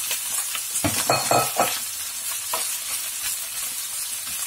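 Beans, beef mince and onion sizzling in a frying pan while a wooden spatula stirs them, with a cluster of scraping knocks of the spatula about a second in.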